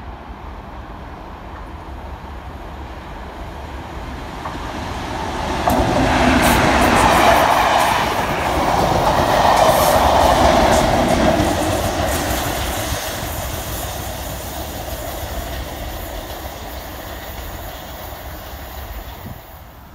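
A Class 37 diesel locomotive on a test train passing close by, its English Electric V12 diesel engine running under the rumble of the train, with wheels clattering over the rail joints. The sound builds from about four seconds in, is loudest from about six to twelve seconds, then fades away.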